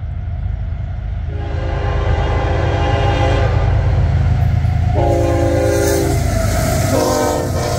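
Union Pacific diesel locomotive sounding its air horn on approach to a grade crossing: a long chord, a shorter one, then a short one, the opening of the crossing signal. Under the horn the locomotives' engines and the train rumble steadily, growing louder.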